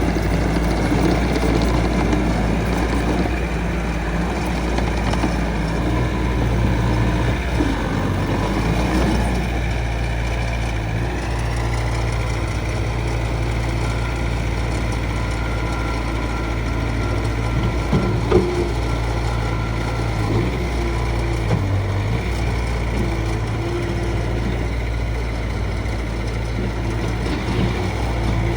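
Bobcat T590 skid steer's diesel engine running steadily, with a whine that rises slightly a third of the way in and a brief knock near the middle.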